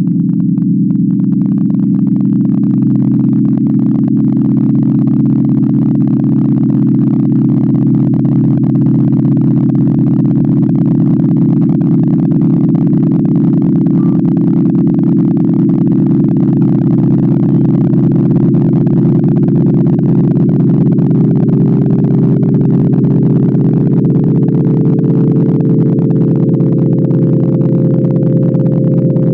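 Computer-generated sonification drone: a dense stack of steady electronic tones, layered with pure tones at 111, 444 and 528 Hz, holding without a break. A higher tone enters near the end.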